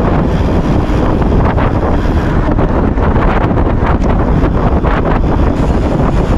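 Loud, steady wind noise buffeting the microphone on a moving bike, a dense low rumble with a few brief crackles.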